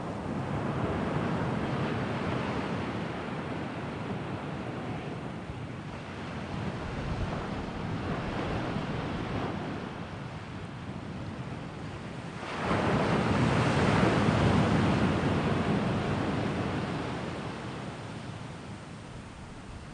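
Sea waves surging and washing ashore, the sound swelling and ebbing, with one bigger wave breaking sharply about twelve seconds in and slowly dying away.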